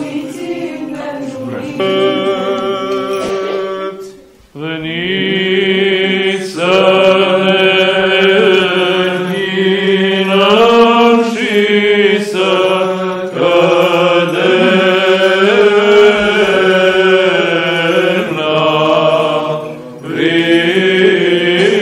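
Orthodox liturgical chant sung a cappella by a choir, with a steady low drone note held under the melody. The singing breaks off briefly about four seconds in, then resumes with long held notes.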